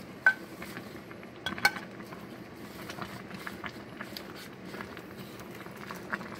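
A red plastic spoon stirring leafy greens and gourd pieces in a stainless steel pot of vegetable soup. It gives a sharp ringing clink against the pot about a quarter second in and a short cluster of clinks around a second and a half in, then soft scraping ticks as the leaves are turned.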